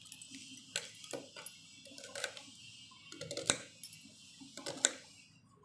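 Kitchen knife slicing onion directly on a stone countertop, the blade striking the stone in about five sharp, irregularly spaced clicks with softer taps between.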